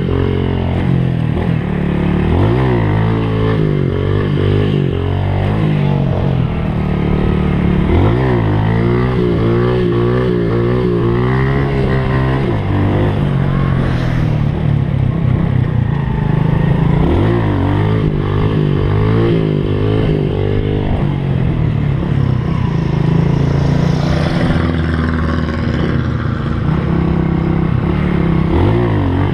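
Honda Pop small motorcycle's single-cylinder engine riding a dirt trail, revving up and easing off again and again as the throttle is worked, with clattering from the bike over rough ground.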